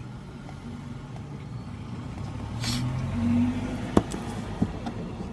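Low steady hum of a vehicle running, with a brief rustle and a sharp plastic click about four seconds in, followed by a few lighter ticks, as the fog light wiring connector and adapter are handled.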